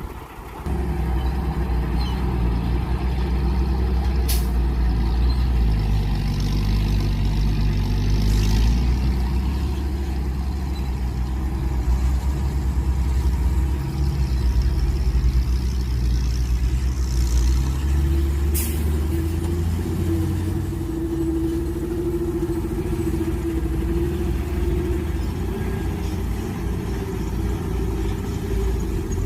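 Mini excavator's engine running steadily at working speed while it digs, with a steady whine coming in about halfway through and two sharp knocks.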